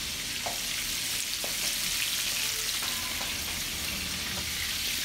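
Pork chops frying in hot shortening: a steady sizzle with faint scattered pops.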